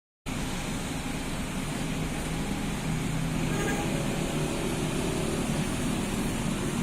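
A car running, with steady engine and road noise that cuts in abruptly just after the start and slowly grows louder.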